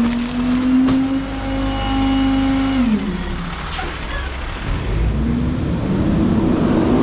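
Garbage truck's diesel engine held at raised, slowly climbing revs, dropping back about three seconds in. A short sharp hiss of released air follows just after. A louder rumbling noise then builds toward the end.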